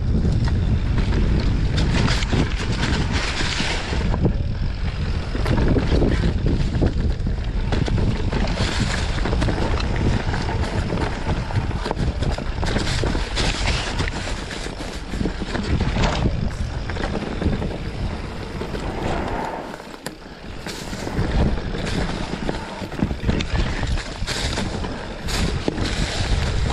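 Mountain bike ridden fast down a rough dirt singletrack: wind rushing over the microphone with a steady rumble of tyres on the trail and repeated clattering knocks from the bike over bumps. It eases briefly about twenty seconds in.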